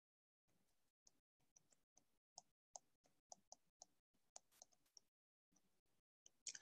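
Near silence with faint, irregular clicks of a stylus tapping on a tablet screen as it handwrites.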